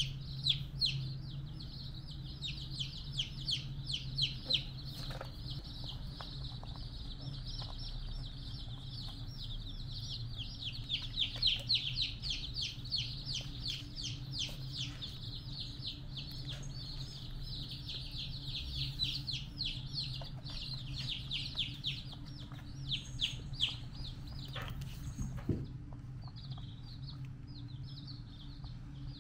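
Rapid high-pitched chirping, a steady stream of short peeps several a second, over a low steady hum. The chirping breaks off with a thump about 25 seconds in and comes back fainter near the end.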